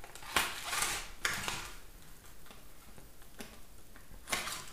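A knife cutting and scraping open the packaging of a small box of firecrackers: a handful of short, sharp scrapes and clicks with quieter rustling between them.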